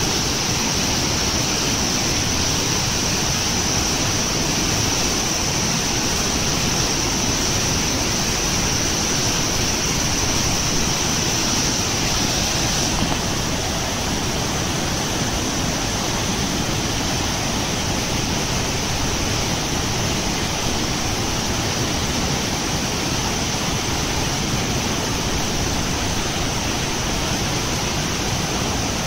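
Loud, steady rushing of floodwater churning at the foot of a concrete dam spillway.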